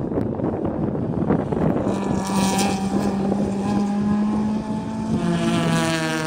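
Track cars' engines running at speed, with wind buffeting the microphone; about two seconds in one engine's steady note comes through clearly, and it drops lower in pitch in the last second or so.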